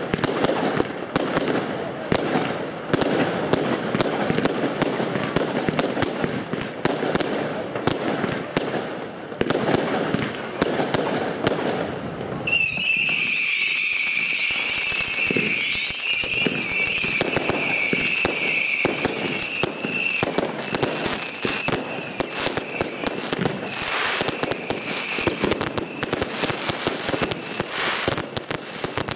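New Year's Eve fireworks battery firing: a dense, continuous crackling and popping of crackling stars. About twelve seconds in, a high steady whistle rises above the crackle, holds for several seconds and fades out later, while the crackling goes on.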